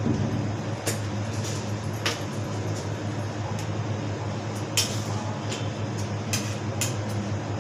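A steady low hum, like a fan or small motor, with a few short sharp clicks and taps scattered through it.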